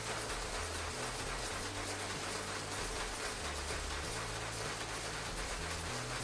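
Paper folding machine with its signature delivery running in production: a steady, fast mechanical clatter as sheets are folded and carried through.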